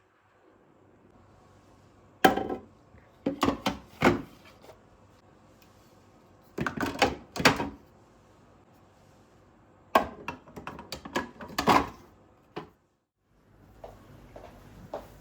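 Three bursts of knocks and clatters, as of household objects being handled and set down, each a few sharp knocks in quick succession.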